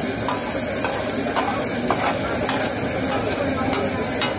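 A metal spatula scrapes and taps against a hot flat griddle, in irregular strikes about two or three a second, as chopped chicken with onion and green chilli is stirred. Under it, oil sizzles steadily.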